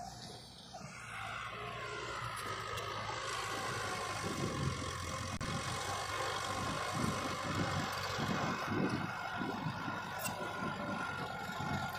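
Engine of heavy earthmoving machinery running steadily, with irregular low rumbling that comes in from about four seconds in.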